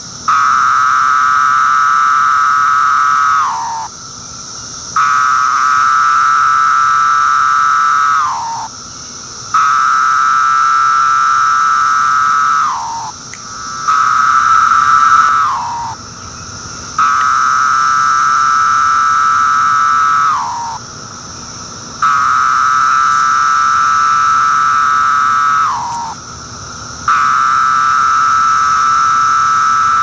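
Male Magicicada septendecim (Pharaoh periodical cicada) calling: a steady buzzing whine held for three to four seconds that drops in pitch at its end, repeated about seven times with roughly a second's pause between. A steady, higher-pitched hiss runs behind it throughout.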